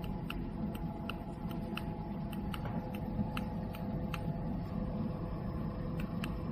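Steady electrical hum of a laser repair machine, with a few thin steady tones over a low rumble. Faint sharp ticks come several a second and stop for a couple of seconds in the second half.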